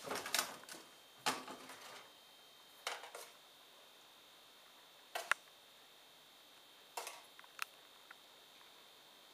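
Kitchenware being handled at a sink: a handful of separate sharp knocks and clinks at irregular moments, over a faint steady high whine.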